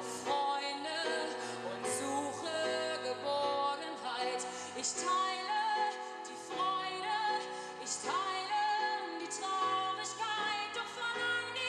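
Music: a woman singing long, held notes over instrumental accompaniment.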